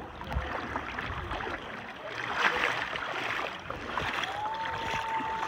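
Shallow sea water sloshing, with the crackle and rub of handling a phone sealed in a plastic waterproof pouch; it is loudest about two and a half seconds in. A single held note rises and then stays level for about a second and a half near the end.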